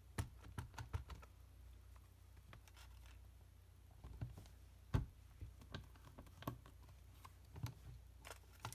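Light taps and clicks of an ink pad being patted onto a red rubber stamp, then sharper knocks as the stamp is handled and pressed onto cardstock, the loudest knock about five seconds in.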